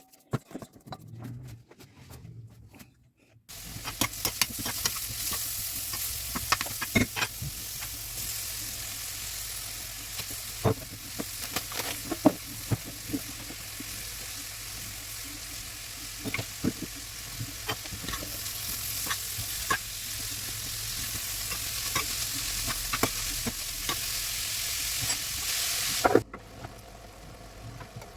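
Pirozhki frying in hot oil in a pan: a steady sizzle with scattered sharp pops and clicks. It starts about three and a half seconds in and cuts off suddenly near the end.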